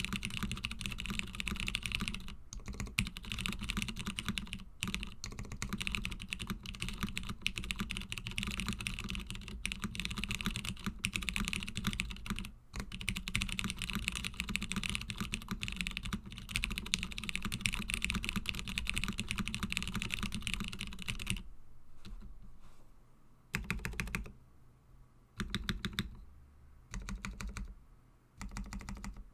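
Fast, continuous typing on a custom mechanical keyboard with lubed, filmed Cherry MX Brown switches, an FR4 half plate and CRP keycaps: a dense stream of keystroke clicks and clacks. About three quarters of the way through, the steady stream breaks into short bursts of typing with brief pauses between them.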